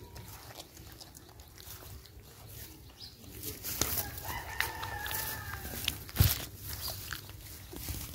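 A rooster crowing once, a drawn-out call of about two seconds starting around four seconds in, over the small wet clicks of puppies eating from a plastic bowl. One sharp click stands out near the end of the crow.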